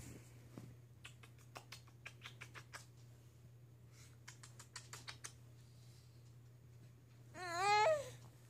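Infant's short warbling squeal near the end, wavering as it rises and then falls in pitch. Before it come two runs of soft, quick clicks, over a steady low hum.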